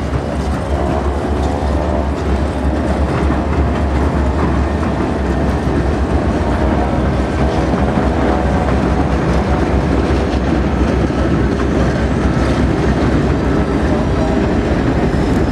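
Alaska Railroad passenger train rolling slowly across a wooden trestle, its wheels clacking over the rail joints over a steady low rumble.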